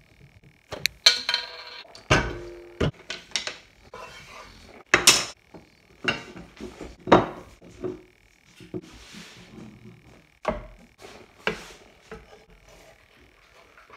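Kitchen handling clatter: a run of irregular sharp knocks and clinks, loudest in the first few seconds. It comes from an oil bottle being opened, a bowl being handled, and a wooden spatula working in a non-stick frying pan on a gas hob. A faint steady high tone runs underneath.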